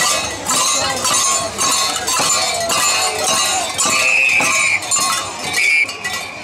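Metal bells clanking in a steady rhythm, about two strikes a second, as carnival dancers move, with crowd voices behind.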